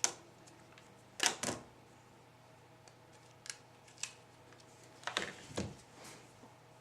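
Scattered short plastic clicks and knocks from hands handling a small electronic alarm unit, a quick cluster about a second in and another near the end, over a faint steady hum.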